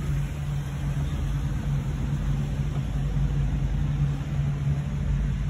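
Ropeway cable car in motion, heard from inside the cabin: a steady low hum over a low rumble.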